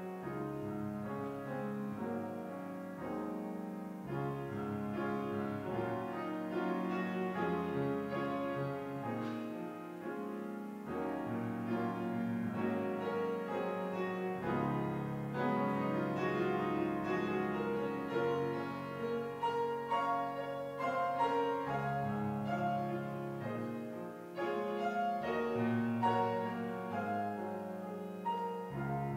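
Slow instrumental keyboard music: chords and a melody over held bass notes that change every few seconds.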